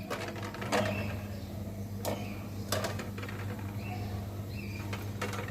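A steady low hum with a few light, sharp clicks or taps spread through it.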